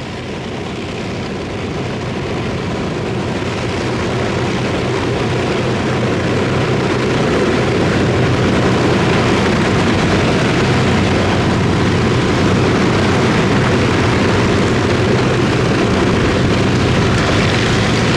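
Avro Lancaster's Rolls-Royce Merlin V12 engines running on the ground, a steady propeller drone that grows louder over the first several seconds and then holds.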